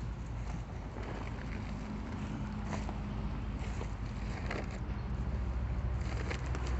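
Paper sack of Quikrete concrete mix being handled and opened: rustling and crinkling paper with a few sharper crackles. A steady low hum runs underneath.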